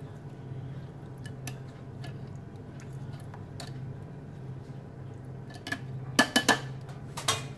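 Metal kitchen tongs clicking and clinking against a ceramic bowl, in two quick bursts of sharp clicks near the end, with fainter scattered taps before that, over a steady low hum.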